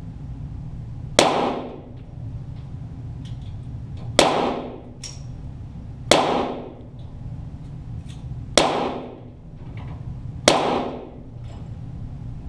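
Five .22 target pistol shots (Walther GSP), fired singly one and a half to three seconds apart, each a sharp crack with a short echoing tail, over a steady low hum.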